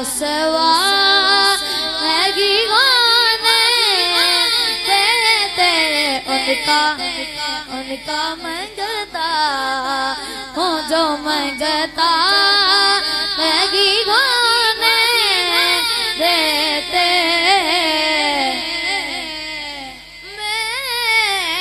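A boy singing solo into a microphone: a devotional naat, sung in long, ornamented melodic lines that bend up and down. There is a brief pause about twenty seconds in.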